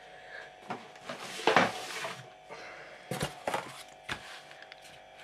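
Things being moved about on a workbench cutting mat and a sheet of cardboard being laid down: a noisy slide about a second long, then a few sharp knocks.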